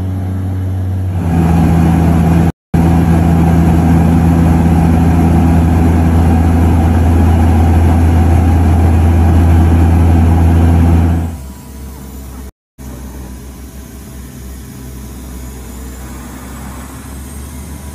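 Seaplane's turboprop engine and propeller droning steadily, heard from inside the cabin, with two brief dropouts. About eleven seconds in the drone drops suddenly to a much quieter, lower level.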